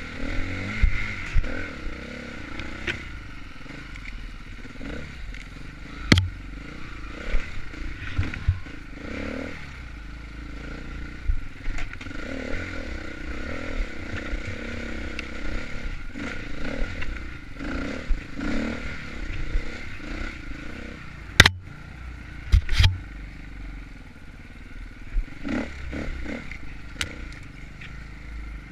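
Enduro dirt bike engine running on a trail, its note rising and falling as the throttle is worked, with scattered sharp knocks and clatter, the loudest a pair of hard knocks about two-thirds of the way through.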